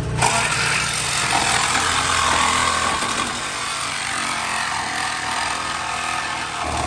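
A power tool cutting into a car's frame rail. It starts abruptly, runs steadily for about six and a half seconds, and stops near the end.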